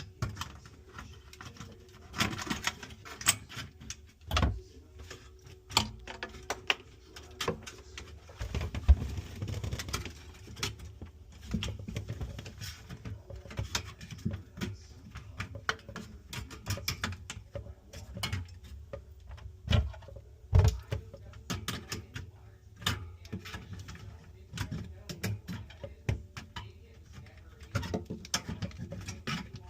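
Hands working on a refrigerator during repair: an irregular run of clicks, taps and rattles of parts and tools, with a few heavier dull thumps, the loudest about nine seconds in.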